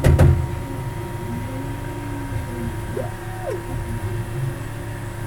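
UP Box 3D printer's stepper motors whining in gliding pitches as the axes speed up and slow down through moves, with one loud knock right at the start and a quick rising, held and falling whine about three seconds in. The printer is running in turbo mode with its Y axis losing steps.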